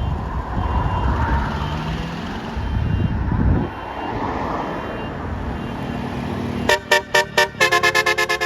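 A passing bus's engine and traffic noise, then near the end a bus telolet horn starts up: several pitched horn trumpets sounding together in a rapid string of short notes, playing a tune.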